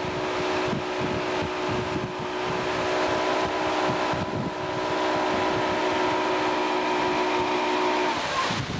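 Motorboat engine running steadily at towing speed, with wind and rushing water on the microphone. The steady engine note drops away just after eight seconds, leaving wind and water.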